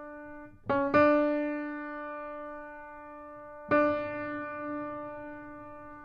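Background music of slow, sustained keyboard notes: a new note is struck just before a second in and another near four seconds, each ringing on and slowly fading.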